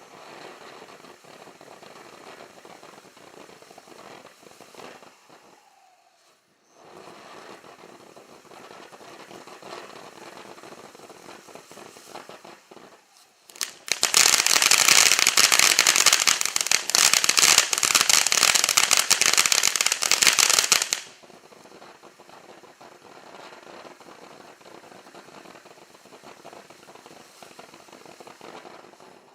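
Winda P3092 Neon Jelly Beans firework going off: a dense crackle of many tiny pops. It is quieter at first, then much louder for about seven seconds halfway through, then drops back to a lighter crackle.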